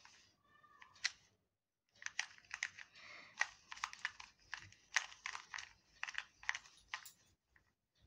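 Stickerless 2x2 Rubik's cube turned by hand: plastic layers clicking as they turn. A single click about a second in, then a rapid run of clicks for about five seconds, the cube being turned through repeated righty-algorithm moves.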